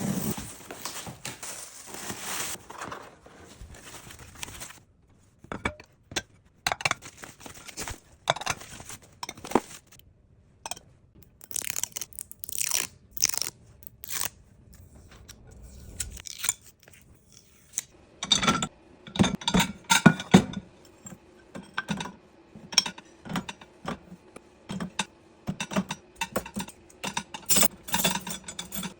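Dishes and cutlery being handled at a small dishwasher: irregular clinks, scrapes and clatter, sparse at first and busier in the second half.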